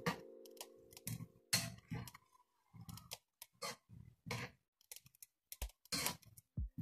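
A ladle scraping and knocking against a wok as vegetables are stirred: a string of irregular clicks and scrapes.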